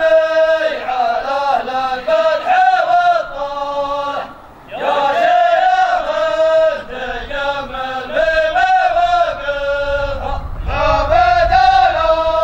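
A single male voice chanting Arabic verse in a drawn-out melody, in long phrases with a short break about four seconds in.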